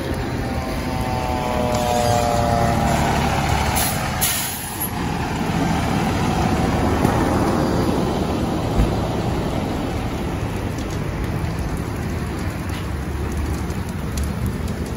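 A large brush and encampment fire burning with steady crackling, over the low running of a fire engine parked alongside. A falling whine sounds in the first few seconds, and a short burst of hiss comes about four seconds in.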